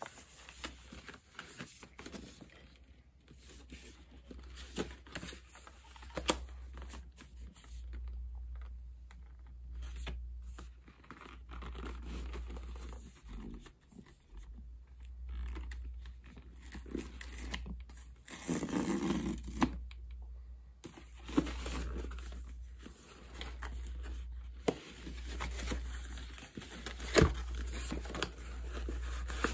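Camera packaging being handled and opened by hand: irregular rustling, crinkling and tearing of paper and plastic with scattered clicks. The loudest crinkling comes about 19 seconds in, and there is a sharp click near the end.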